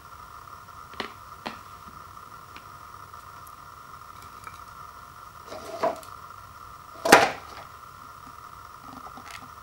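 Dry instant ramen noodles and dried wontons handled on a ceramic plate: a couple of light clicks, then a rustling scrape, then a sharper knock about seven seconds in as the noodle block goes into the paper cup, over a steady faint hum.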